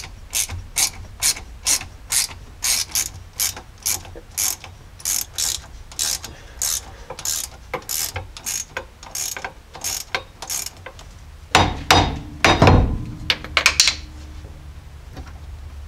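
Ratchet wrench clicking in a steady run, two or three clicks a second, as it backs out the bolts holding the front driveshaft's U-joint to the axle yoke. From about eleven seconds in there is a louder clatter of metal knocks and scraping as the driveshaft end is worked free.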